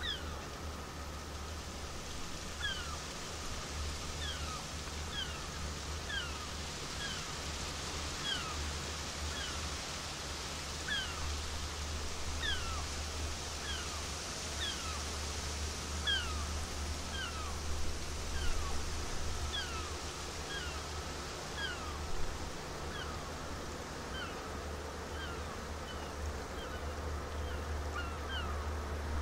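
Gulls calling over and over, short falling cries about one a second, over the steady low hum of the MSC Poesia cruise ship passing close by.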